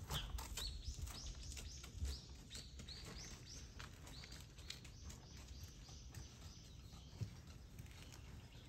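Bird calling: a run of short, high chirps, about two a second, that fades out after four or five seconds. A single brief knock sounds near the end.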